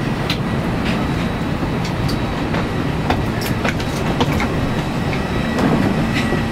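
Steady hum inside a parked Airbus A321's cabin, with scattered short clicks and knocks of passengers and bags moving along the aisle.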